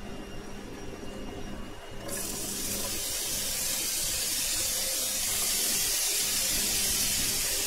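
Strips of red bell pepper tipped into a hot oiled frying pan: a sudden sizzle of frying starts about two seconds in and carries on as a steady hiss.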